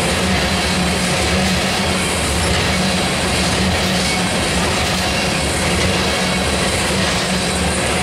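Tank cars of a freight oil train rolling past: a steady, loud rumble of steel wheels running on the rails.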